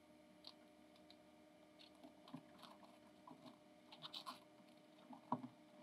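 Near silence, with faint scattered crinkles and scratches of foil-faced soundproofing insulation being pressed and smoothed down by hand, and one sharper click near the end.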